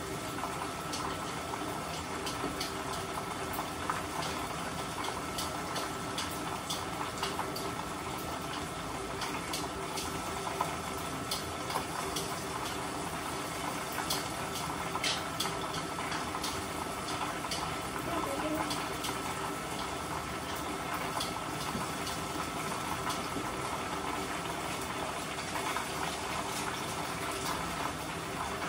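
Floured chicken drumsticks deep-frying in hot corn oil: a steady sizzle dotted with frequent small crackles and pops. A faint steady hum runs underneath.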